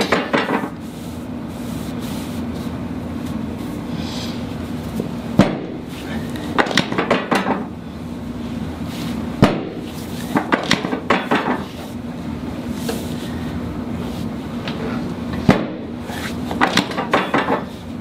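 Chiropractic drop table: under the chiropractor's thrust the raised drop section snaps down with a sharp clack, three times, every four to six seconds. Between drops there is a short clatter of clicks as the section is reset.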